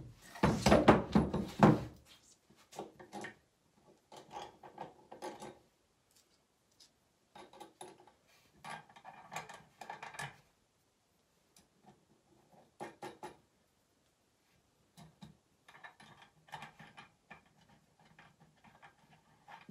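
A wooden frame is handled with a loud knock and scrape on a wooden workbench at the start. Then come short, scattered metal clicks and rattles as washers and nuts are fitted onto carriage bolts by hand.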